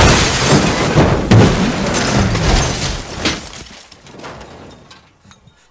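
A van hitting a cow and crashing: a loud crash right at the start, then about three seconds of banging and scraping with several sharp impacts, dying away over the last two seconds.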